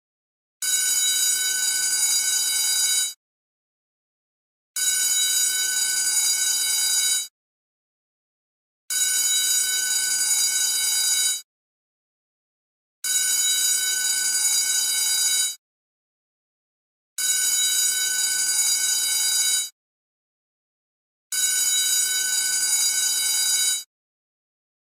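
School bell ringing in evenly repeated bursts of about two and a half seconds, six times, each stopping abruptly with a short silence between.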